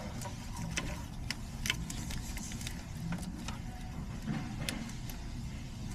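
Scattered light clicks and taps from hands working along an O2 sensor's wiring and its plastic clips in a car's engine bay, over a steady low rumble.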